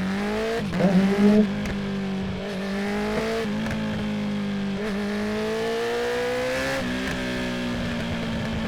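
2019 Honda CB650R inline-four engine through a full Akrapovic titanium exhaust with the dB killer removed, revving up, shifting about half a second in with a brief louder burst, then running steadily in gear with small dips and slow rises in pitch.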